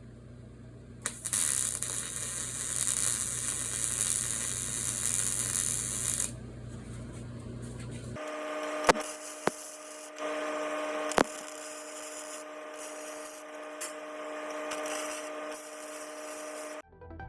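MIG welder arc on steel, a crackling hiss that starts about a second in and runs for about five seconds over a steady electrical hum. About eight seconds in the sound changes abruptly to a steadier noise with a few steady tones and a few sharp clicks, which stops just before the end.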